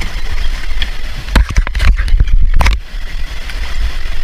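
Wind rumbling on the microphone over river water around a drifting inflatable raft. A quick run of knocks and clatters comes about one and a half to three seconds in.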